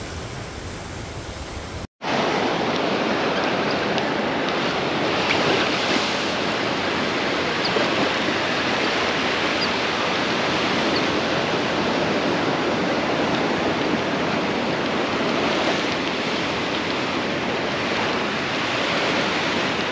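Ocean surf: a steady rush of waves breaking and washing up a beach. It drops out for an instant about two seconds in and comes back louder.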